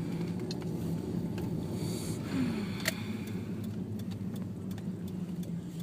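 Steady road and engine hum heard inside a moving car's cabin, with a few scattered light clicks, the clearest about three seconds in.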